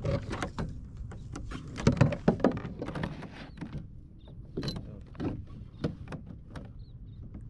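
Irregular clicks and knocks of fishing tackle and a landing net being handled on a plastic kayak while a hooked fish is reeled in, loudest about two seconds in, over a low steady rumble.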